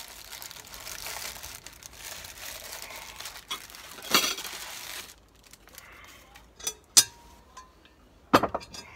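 Hands lifting baked cheese scones out of a Petromax FT3 cast-iron Dutch oven onto a plate, with a crumbly rustle for the first few seconds. A few sharp clinks and knocks follow, from a metal utensil against the cast-iron pot and plate, the loudest about a second before the end.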